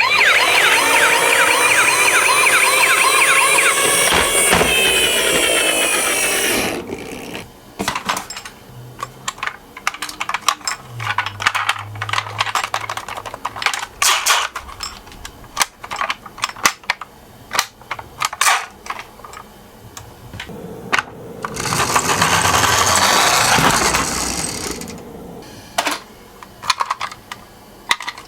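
Toy ambulance's electronic siren wailing in quick repeated sweeps for about seven seconds. Then comes a long run of small plastic clicks and knocks from toy cars being handled and rolling, with a second loud, hissy electronic sound partway through.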